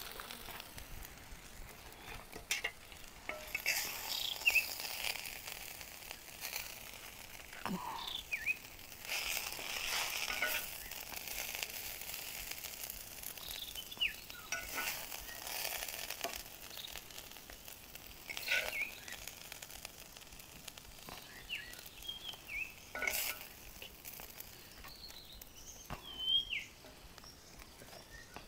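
A metal spoon scraping and clinking against a cooking pan in separate strokes every few seconds as cooked leafy vegetable bhaji is served out, over a faint sizzle from the still-hot pan.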